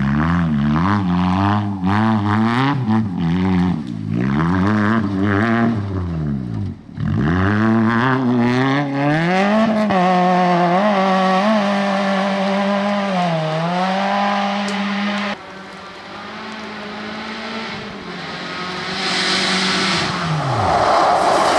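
Rally cars at full throttle on a special stage, in several short takes. Engines rev hard up and down through gear changes, then one holds high revs for several seconds. Near the end a car passes with a rush of noise and its engine note falls away.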